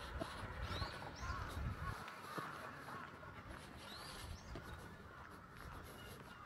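Birds calling: a few short rising-and-falling chirps and some harsher calls, faint, with low thuds in the first two seconds.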